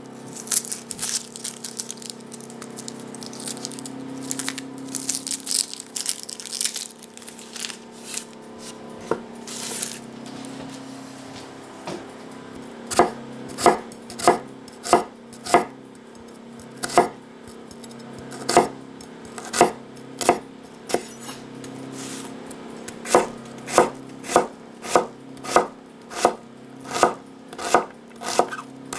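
Dry onion skin crackling and rustling as it is peeled by hand, then a chef's knife chopping onion on a wooden cutting board: sharp knocks about two a second in short runs from about halfway on.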